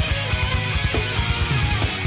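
Loud heavy rock music with guitar and a fast, steady drum beat.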